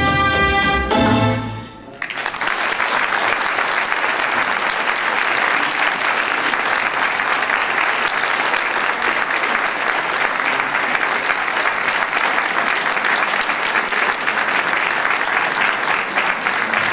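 Salsa music ending on its last notes about a second and a half in, followed by steady audience applause.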